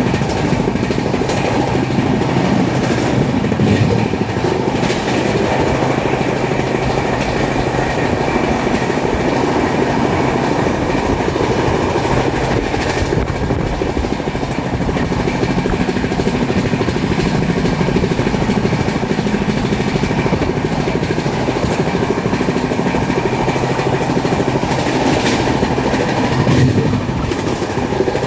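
Passenger express train running through a station at speed without stopping, its coach wheels clattering over the rail joints in a steady, loud rush.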